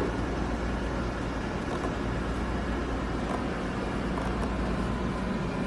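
Steady machine hum of a fat-removal treatment device, a constant low drone with a faint steady tone running evenly throughout.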